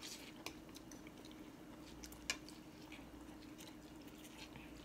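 Faint sounds of people eating pho: quiet slurping and chewing of noodles, with a few small sharp clicks, over a steady low hum.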